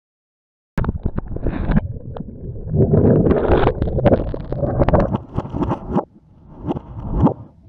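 Water sloshing and gurgling with irregular knocks and rumble, picked up by an underwater camera's own microphone as the camera is plunged and jostled through an ice-fishing hole. It starts suddenly about a second in and eases off for a moment near the end before more knocks.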